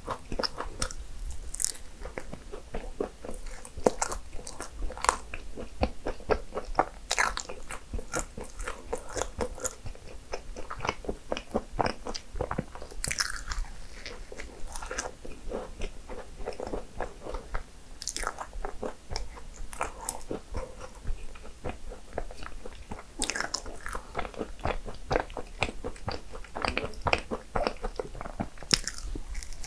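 A person biting and chewing cinnamon rolls. The sound is a steady run of irregular small crunches and wet chewing clicks.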